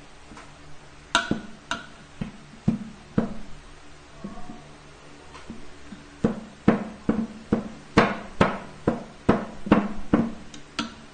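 A glass pounding ground sticky rice in a stainless steel bowl: knocks that ring briefly off the metal. A few irregular knocks come first, then a steady run of about two a second from about six seconds in.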